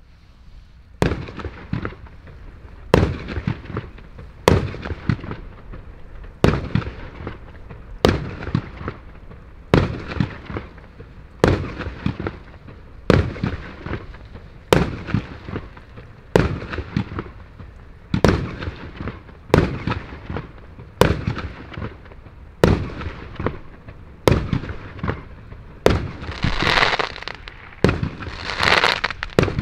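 Röder 'Lets Fetz' fireworks compound cake, up to 30 mm calibre, firing single shots about every second and a half, each a sharp bang with a fading tail. In the last few seconds the bursts turn to loud crackling.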